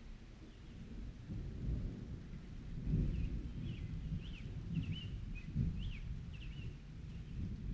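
Rolling thunder rumbling low, swelling about a second in to its loudest near three seconds and then rolling on in waves. A bird chirps in a quick series of short calls over it in the middle.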